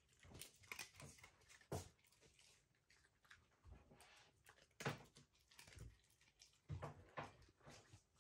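Shiba Inu eating dry kibble from a metal tray: faint, irregular crunches and small clicks of pieces against the tray.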